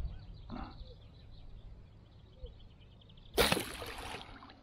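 A bowfishing bow shot about three seconds in: a sudden sharp release of string and arrow with the arrow hitting the shallow pond water, dying away over about a second.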